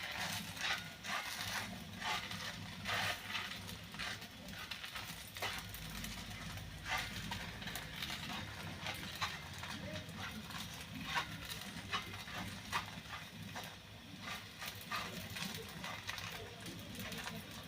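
Scattered light clicks and scrapes of a spatula working a pancake loose in a frying pan, over a low steady hum.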